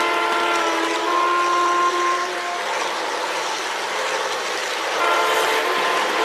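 Model train locomotive's onboard sound system sounding a horn chord: one long blast lasting about two and a half seconds, then a second blast starting about five seconds in, over a steady hiss of running noise.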